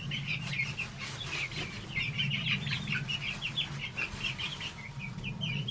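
A flock of young chickens peeping and clucking continuously in quick, high chirps, over a steady low hum.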